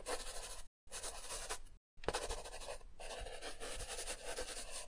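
Pen scratching across paper, a handwriting sound effect, broken twice in the first two seconds by short abrupt drop-outs.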